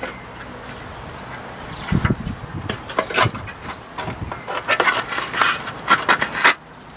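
Irregular scraping, knocking and crackling as a motorcycle seat's fiberglass base and its old covering are handled and worked at. It starts about two seconds in and stops abruptly near the end.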